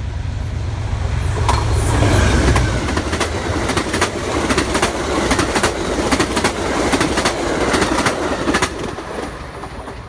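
Amtrak passenger train passing at speed. The diesel locomotive's low engine rumble is loudest about two seconds in, then the Amfleet coaches' wheels clickety-clack over the rail joints in a quick, uneven rhythm with a rushing roar. It fades near the end as the last car goes by.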